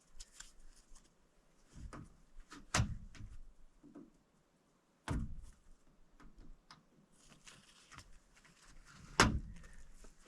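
Steel roofing sheets being handled and set down: scattered knocks and clicks, with three heavier thumps about three, five and nine seconds in.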